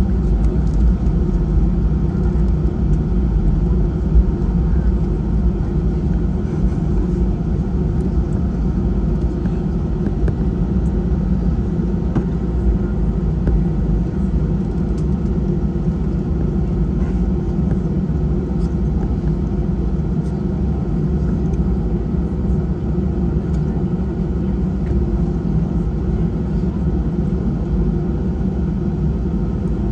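Cabin noise inside an Airbus A320-family jet airliner taxiing: a steady low rumble from the jet engines at low taxi power.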